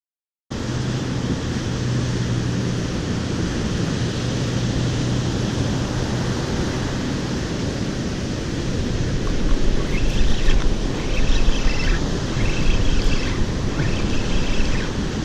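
Surf breaking and washing up a sandy beach, with wind buffeting the microphone and a low rumble that grows in the second half. A run of short, high-pitched sounds repeats over the last few seconds.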